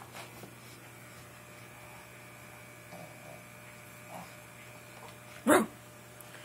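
A steady low electrical hum, then near the end a single short, sharp bark from a Pekingese.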